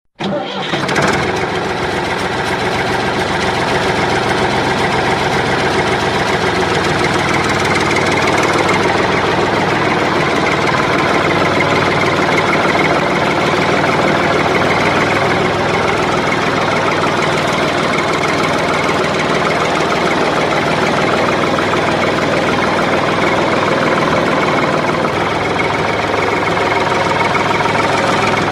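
Engine running steadily at a constant speed, with a fast, even pulse, like a tractor engine idling.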